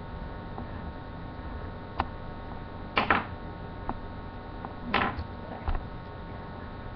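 Two short scratchy drawing strokes on paper, about two seconds apart, with a few faint taps between them over a steady low hum.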